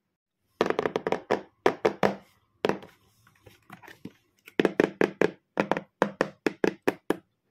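Fingers tapping on a cardboard toy box in quick runs of sharp taps, softer and sparser in the middle, then about four to five taps a second near the end.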